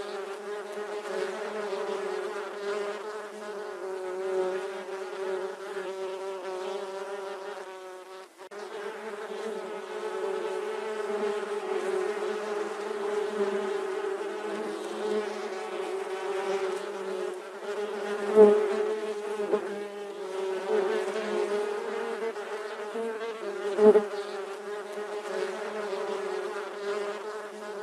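Bees buzzing: a continuous, wavering buzz that briefly fades about a third of the way in and flares sharply louder twice in the second half, as a bee comes close.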